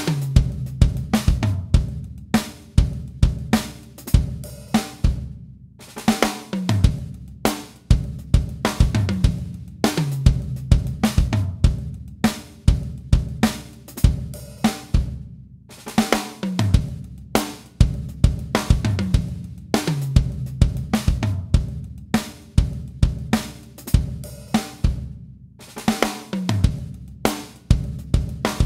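Recorded drum kit groove of kick, snare, hi-hats and cymbals playing in a repeating pattern, with short breaks every few seconds, through an API 2500 compressor plug-in on the drum bus. The compressor's ratio and attack are changed as it plays.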